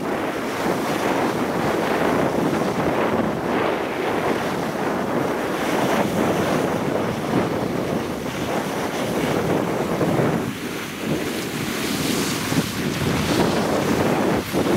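Steady rushing wind noise on the microphone of a camera moving fast down a snowy slope, mixed with the hiss of sliding over the snow. It eases briefly about ten seconds in.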